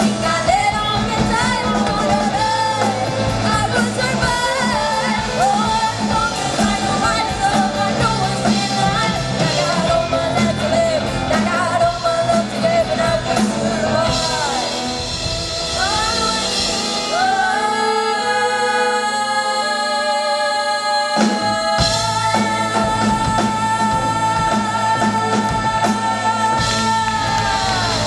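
Live rock band playing with sung lead vocals. About two-thirds of the way in, the drums and bass drop out and long notes are held. The full band crashes back in about 21 seconds in and sustains a closing chord that ends near the end.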